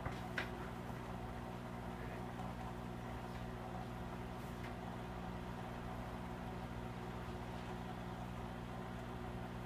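Steady hum of an aquarium pump, with the soft hiss and bubbling of an airstone's bubble stream over it. One short click about half a second in.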